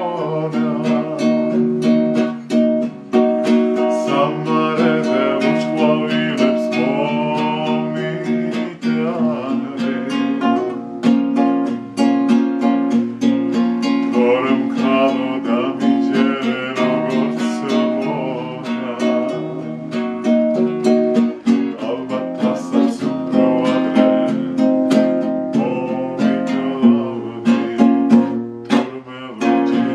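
A man singing a Georgian song while strumming an acoustic guitar in a steady rhythm.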